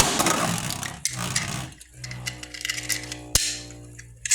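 Beyblade spinning tops launched into a plastic stadium: a loud rush and clatter at the start, then the tops spinning with a steady whir and one sharp click a little after three seconds in.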